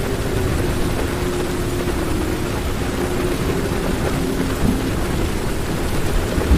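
Heavy rain falling on a car's roof and windows, heard from inside the car. Underneath it run a low rumble and a faint steady hum.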